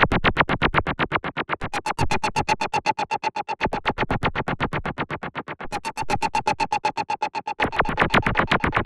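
Fast, pulsing electronic background music: a synthesizer beating about eight pulses a second over a held note, getting brighter near the end.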